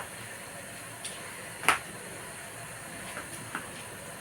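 Steady hiss of a pot of stew cooking on the stove, with a sharp clink about one and a half seconds in and a fainter tick before it.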